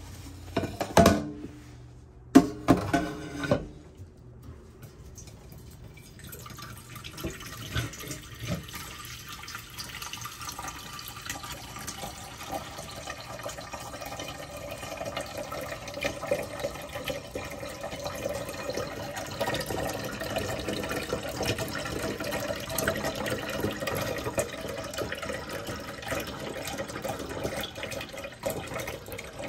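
Two loud knocks near the start, then water running steadily from about six seconds in, slowly growing louder.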